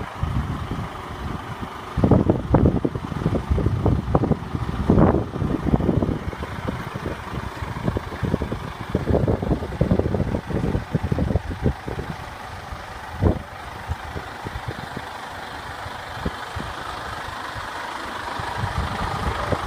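Mercedes-Benz Arocs 4163 tow truck's straight-six diesel running slowly as the truck creeps forward, with irregular low rumbling thumps over the first twelve seconds or so.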